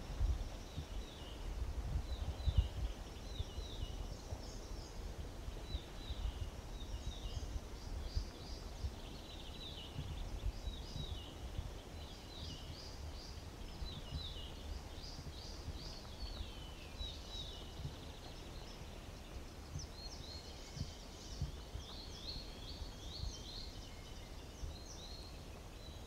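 Songbirds singing: many short, quick chirps and trills that fall in pitch, overlapping throughout, with a low rumble underneath.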